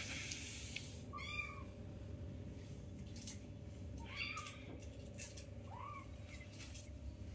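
Young orange-and-white kitten mewing: three short, high mews spaced a few seconds apart.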